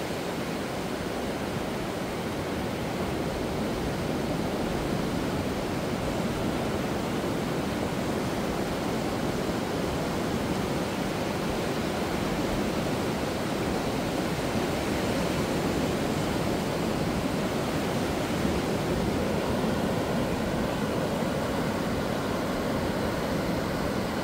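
Low surf breaking offshore and washing thinly up a sandy beach: a steady, even rush of water.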